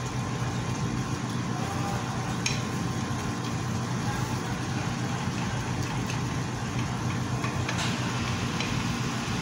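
A wooden spatula stirring sliced bottle gourd (opo) simmering in a little liquid in a metal pan, with a few light knocks against the pan, over a steady low hum.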